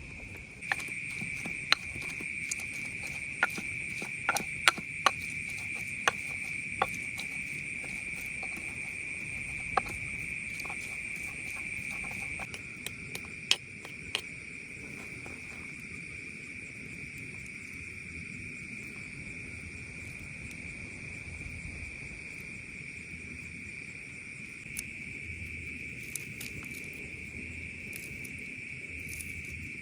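Crickets chirring steadily at one high pitch. Over the first half come irregular sharp knocks, from a pestle grinding sambal ingredients in a mortar.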